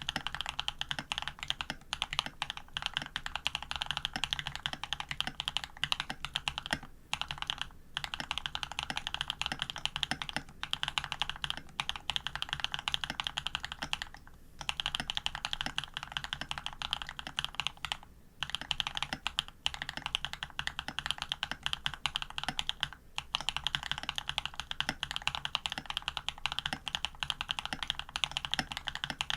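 Fast continuous typing on a custom AR87 mechanical keyboard with lubed Jade Cream linear switches, aluminium plate and PBT keycaps: a dense stream of key clacks with brief pauses now and then.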